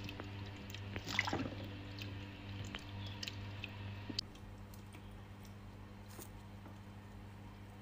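Red-eared slider turtle sliding off its basking platform into the tank water with a splash about a second in, followed by a few small drips, over the steady low hum of the aquarium filter.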